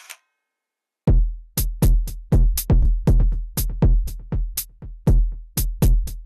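Electronic background music with a drum-machine beat, starting about a second in: a deep kick drum and sharp high clicks, repeating two to three times a second.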